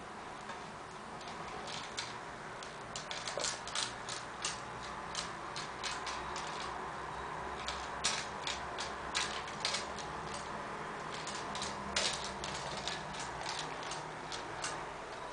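A kitten batting a toy mouse on a coiled metal spring: quick, irregular clicks and taps, coming in clusters of several a second.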